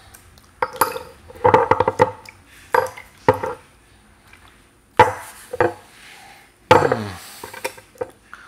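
Small white porcelain tea cups clinking and knocking against each other and the wooden tea tray as they are rinsed. The sharp clinks come in irregular clusters, with short quiet gaps between them.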